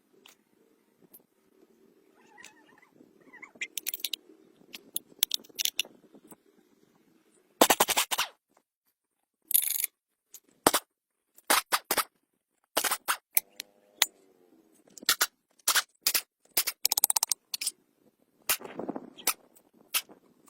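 Irregular sharp knocks and clicks, some in quick runs, with a few longer noisy bursts about a third of the way in.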